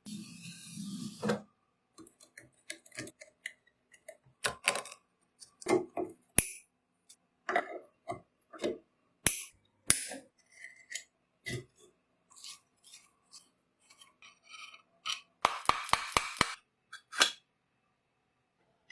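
Metal parts of an old hand drill and hand tools being handled during restoration work: irregular clinks, knocks and short scrapes, with a brief scrape at the start and a quick run of about six taps near the end.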